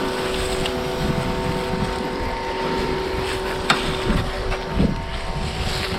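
Small Greenworks electric pressure washer running: its motor and pump give a steady hum while it sprays soapy water. Wind rumbles on the microphone.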